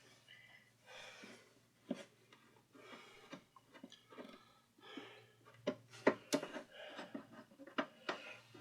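Scattered light clicks and taps of hands working on parts inside a 1962 Westinghouse record player's case, busier in the second half, over a faint steady low hum.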